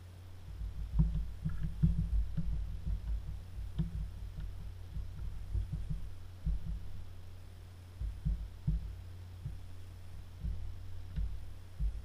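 Fingers pressing the silicone rubber keys of a SparkFun 4x4 button pad, making dull, soft thumps at an irregular pace that start about half a second in. A steady low hum runs underneath.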